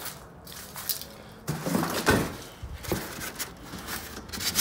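Junk being handled and moved about, a cardboard box among it: a few faint clicks, then from about a second and a half in a run of irregular knocks and thumps, the loudest about two seconds in.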